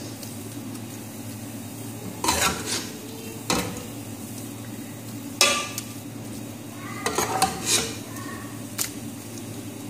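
A spoon knocking and scraping against a steel cooking pot in about five short clatters as minced meat is spread over a layer of rice, with a steady low hum underneath.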